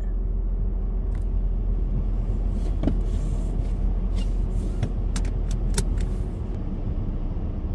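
Car engine idling, heard from inside the cabin as a steady low hum, while the driver's seatbelt is drawn out and buckled, giving several sharp clicks and rattles in the middle.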